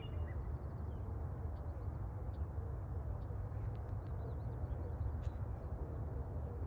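Outdoor ambience: a steady low rumble of wind on the microphone, with faint, scattered bird chirps.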